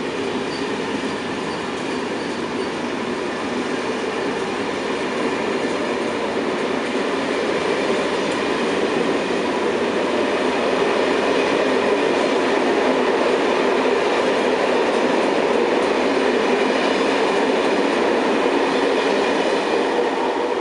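Passenger train of SNCF Corail coaches rolling past along a station platform: a steady rumble and rush of wheels on rails with some clickety-clack. It grows louder about halfway through and holds there as the last coach goes by.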